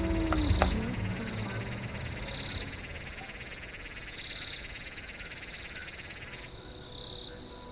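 A chorus of frogs calling: a trilled call repeats about every two seconds over a dense, rapid pulsing chorus that drops away near the end. The tail of a piece of music fades out in the first second.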